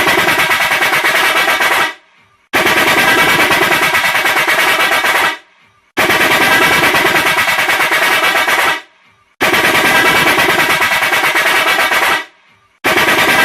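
A 'çat çat' rattling car horn sounding in repeated blasts about three seconds long with short breaks between, each blast a fast machine-gun-like rattle over a steady horn tone.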